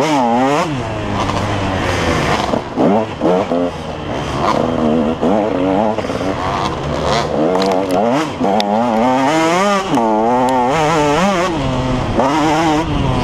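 KTM 150 XC two-stroke dirt bike engine under hard riding, its pitch climbing and falling back over and over as the throttle is worked. A few sharp knocks come through near the middle.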